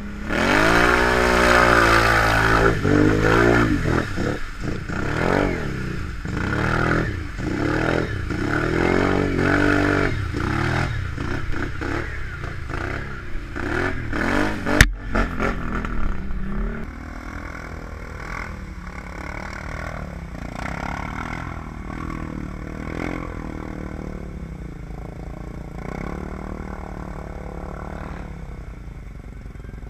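Can-Am Outlander XMR ATV engine revved hard again and again through mud, its pitch climbing and falling with each blip of the throttle, with one sharp knock about fifteen seconds in. About two seconds later the sound drops to a quieter, steadier ATV engine running.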